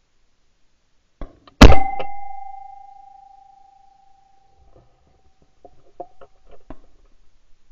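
A single shotgun shot at a pigeon about a second and a half in, very loud and sharp, its report dying away over about a second. A steady ringing tone lingers for a few seconds after, and a few light clicks and knocks follow near the end.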